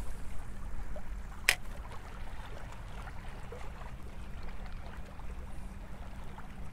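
Wind rumbling on the microphone over faint lapping of shallow water, with one sharp click about a second and a half in.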